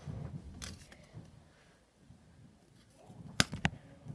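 Faint handling rustle of basketball trading cards, with two sharp clicks in quick succession a little over three seconds in.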